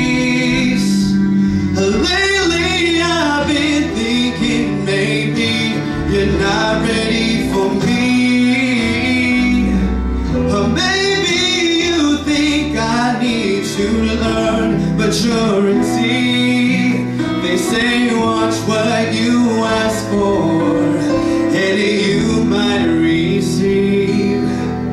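A man singing a song into a handheld microphone over an instrumental backing track.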